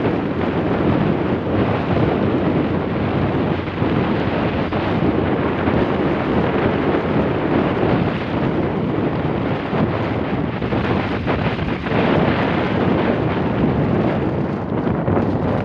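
Wind buffeting the microphone: a loud, steady rushing noise that swells and dips, with no clear tones.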